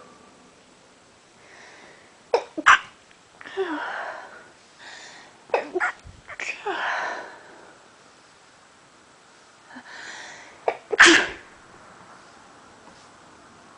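A person sneezing from allergies: three sudden sneezes, about two and a half, six and eleven seconds in, with softer breaths between them. The third is the loudest.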